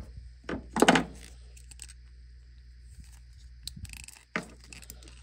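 Small handling noises as a heat-shrink crimp terminal on a wire is worked with crimping pliers. A short, loud bump comes about a second in, a sharper knock just after four seconds, and another loud bump at the very end.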